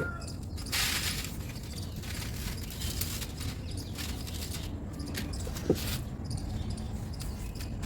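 Dry, dusty material crumbling and dropping in soft, irregular crackly hisses, the longest about a second in, with a single sharper tap near the end.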